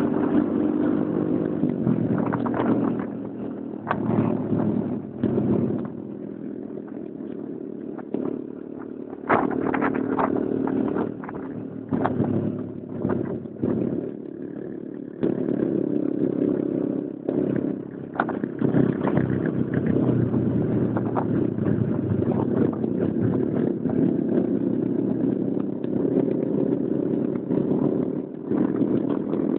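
Small motorcycle engine running while riding along a road. It grows louder and quieter with the throttle and has two quieter stretches in the first half, then runs louder and steadier through the second half.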